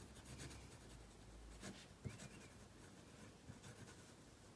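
Faint scratching of a fine-tip marker writing a signature on a small paper label, in short strokes.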